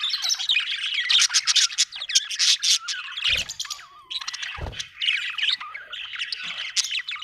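Budgerigar chattering: a rapid, continuous run of chirps, squeaks and warbles, with a short lull about four seconds in. A couple of dull low thuds sound about three and a half and four and a half seconds in.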